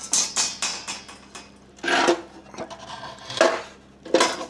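Light metal clinks, taps and scrapes of metal being handled against sheet steel, with a few louder knocks about two and three and a half seconds in.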